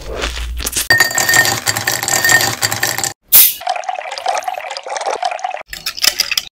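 Kitchen sounds in short cut-together bursts: liquid being poured, with clinks of utensils or glassware. The sound breaks off suddenly a few times between clips.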